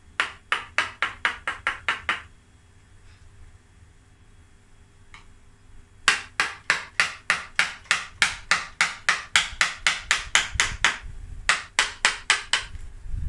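Mallet tapping a carving gouge into wood, about four to five sharp strikes a second: a short run, a pause of a few seconds, then a long run and a short one. The gouge is hollowing broken, dead wood out of a bonsai trunk to form a shari.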